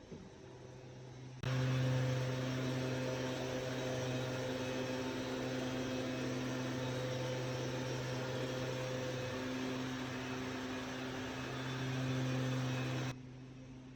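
A loud electric appliance motor switched on abruptly, running steadily with a hum for about twelve seconds, then switched off suddenly.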